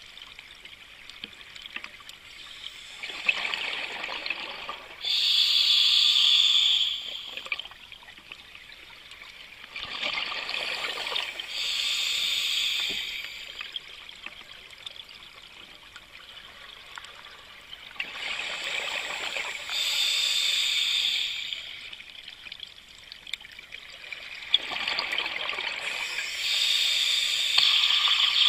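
Scuba diver breathing through a regulator underwater: four slow, even breaths, each a stretch of bubbling followed by a steady hiss, with quiet pauses between.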